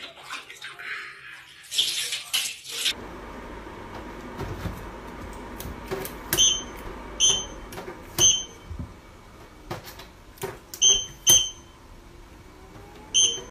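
Water splashing in a tub, then about six short electronic beeps at uneven intervals from an air purifier's touch control panel as a cat presses it with its nose, over a steady low hum.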